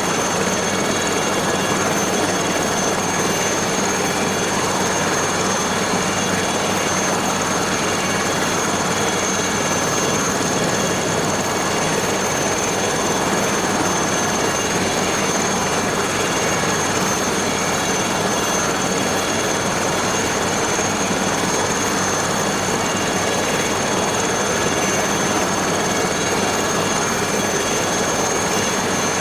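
Aérospatiale SA 315B Lama helicopter running steadily, its Turbomeca Artouste turboshaft giving a constant high whine over the steady noise of engine and rotor.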